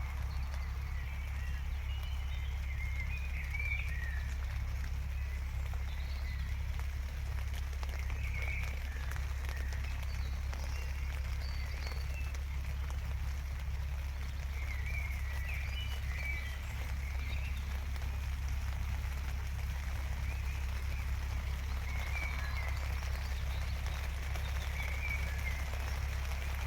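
Steady rain falling, with birds chirping now and then.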